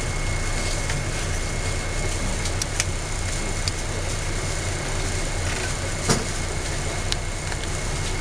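Street traffic: a steady low rumble of idling and moving cars, with a faint steady high whine, a few short clicks and one louder knock about six seconds in.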